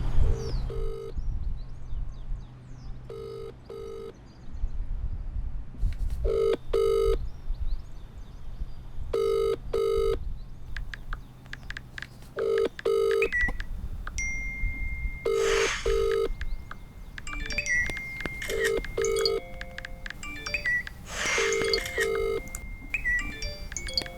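Telephone ringback tone, the double ring a caller hears while a call rings out: two short buzzing rings, repeating about every three seconds. From about halfway through, a thin steady high tone and small chirps sound alongside it.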